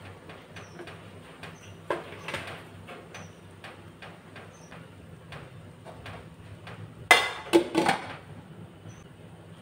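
Aluminium pot lid clattering onto a large soup pot: several quick metal clanks with a ringing tail near the end. A smaller knock about two seconds in, over a steady low hum.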